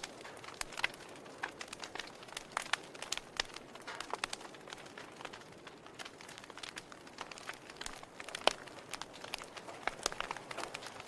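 Firewood burning in a fireplace, crackling with irregular snaps and pops over a soft hiss; the sharpest pop comes about eight and a half seconds in.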